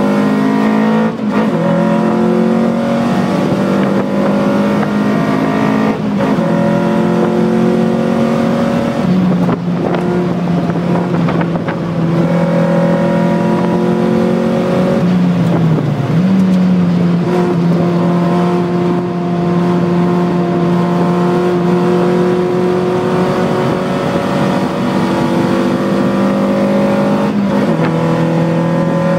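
Lotus Elise engine heard from inside the cabin while lapping a race track, its pitch climbing slowly and then dropping at each of several gear changes.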